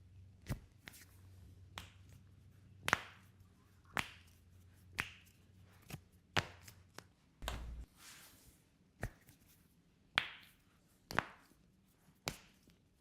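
Hands striking a client's body during a chiropractic treatment: a series of sharp slaps, about one a second.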